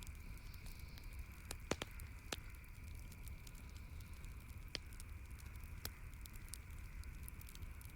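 Campfire crackling, with irregular sharp pops of burning wood; the loudest come a little under 2 seconds in and just before 5 seconds, over a faint steady hiss.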